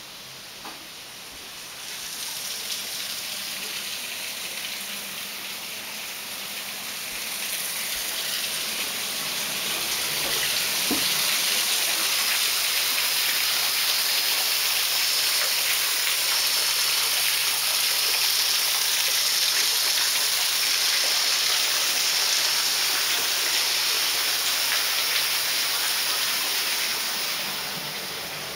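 Steady hiss of falling water that grows louder a few seconds in and fades near the end.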